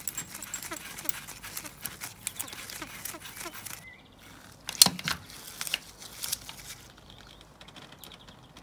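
Rubber-gloved fingers squeaking and rubbing in short farting noises while threading an oil drain plug into an engine sump by hand. A sharp metal click comes a little before five seconds in, followed by a few lighter clicks as a socket wrench goes onto the plug.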